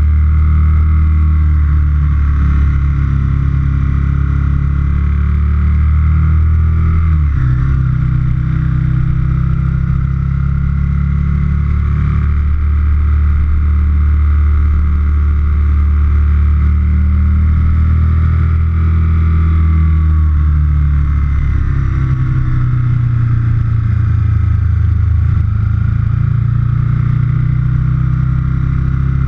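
2004 Aprilia Futura's 998 cc V-twin engine running as the motorcycle rides along, heard close from the tank. The engine note shifts about seven seconds in and again about twenty-one seconds in, as the revs change.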